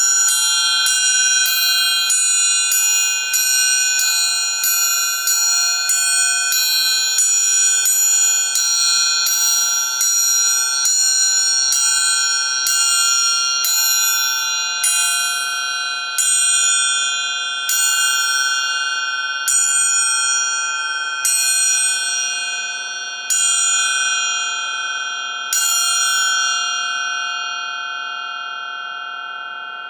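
Amplified orchestral triangle struck again and again with a metal beater, its bright metallic ringing held steady. The strokes come about twice a second at first, then slow to one every two seconds or so, and the last stroke is left to ring out and fade.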